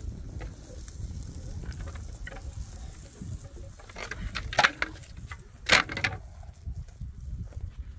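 A few sharp clattering knocks, a quick cluster about four seconds in and a louder one near six seconds, over a steady low rumble.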